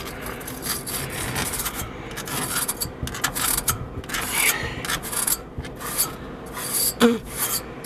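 A stiff brush scrubbing the dirty condenser coil of a commercial refrigeration unit, with repeated rough scraping strokes against the coil fins.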